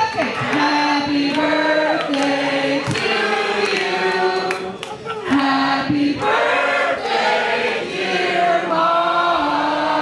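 A crowd of people singing together, with long held notes in phrases a second or two long and short breaks between them.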